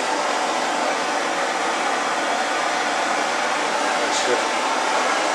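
A steady, even rushing hiss of air, with a brief faint high squeak about four seconds in.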